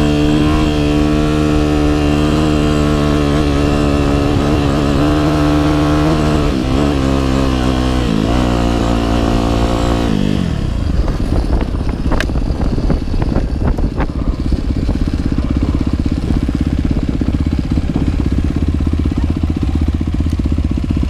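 Yamaha YZ250F single-cylinder four-stroke dirt bike engine running on the trail, its pitch shifting as it is ridden through the gears. About ten seconds in the throttle is rolled off and the engine settles to a low idle rumble, with a few sharp clicks.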